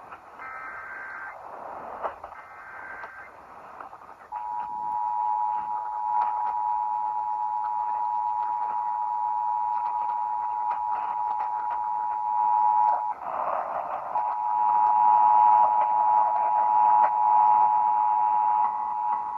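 Emergency Alert System test received over the radio: the last two short warbling SAME header data bursts, then the two-tone attention signal (853 and 960 Hz together) sounding steadily. About two-thirds of the way through the tone drops out briefly under a burst of noise, then resumes, all with a hiss in the background.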